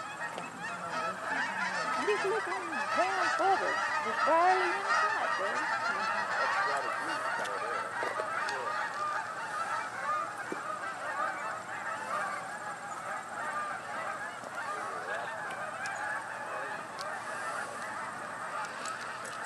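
A large number of Canada geese honking from flocks in flight, a dense chorus of overlapping calls with no pause, loudest a few seconds in.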